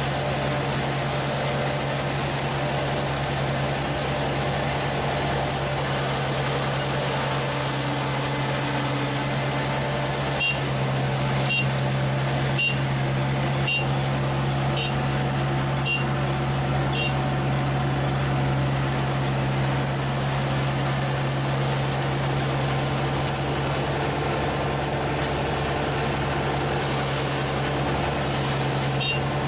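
ISEKI rice harvester's engine running steadily under work. About ten seconds in, a short high beep sounds about once a second, seven times, and once more near the end.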